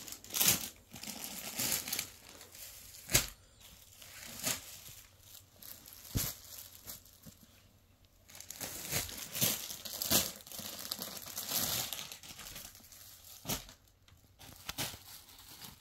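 Clear plastic packets crinkling and cotton suit fabric rustling as the pieces are handled, unpacked and spread out, coming in irregular bursts with a few sharp snaps about 3, 6 and 13.5 seconds in.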